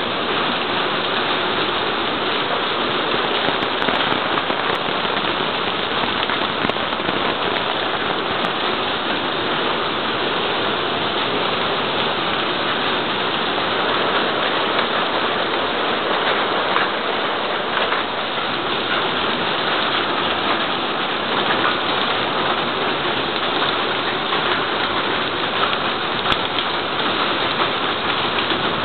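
Heavy rain in a thunderstorm, pouring steadily onto a garden lawn and paved patio, with water running off a roof edge. It is an even, unbroken hiss of rain.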